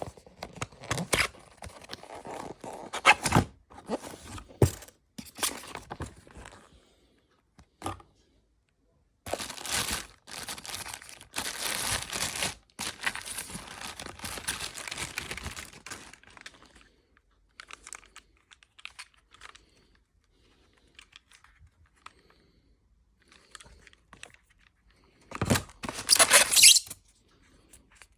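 Packaging being torn and crinkled by hand as a box's contents are unwrapped, in irregular bursts of rustling with a few sharp knocks, loudest with a burst of rustling near the end.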